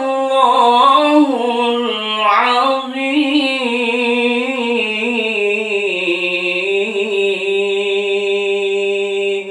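A man reciting the Quran in a melodic tilawah style, one unaccompanied voice. An ornamented, wavering phrase gives way about three seconds in to a long drawn-out held note with small turns.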